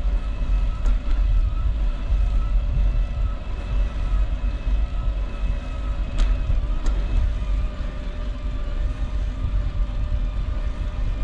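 Wind buffeting the action camera's microphone while cycling, a loud, uneven low rumble, with a faint steady whine underneath. A few sharp clicks come about a second in and around six seconds in.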